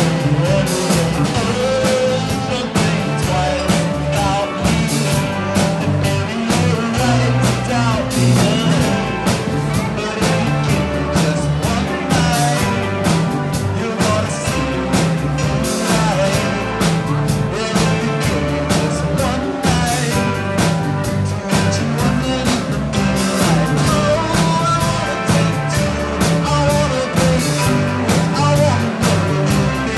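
Live band playing a song: a man singing over electric guitar, bass line and drum kit with a steady beat.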